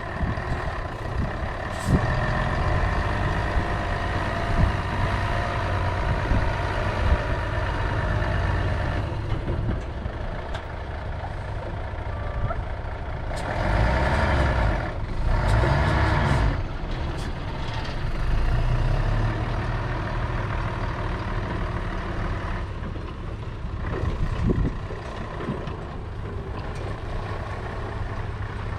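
Mercedes-Benz concrete pump truck running, a steady heavy diesel drone with a few brief knocks. It gets louder for a few seconds about halfway through.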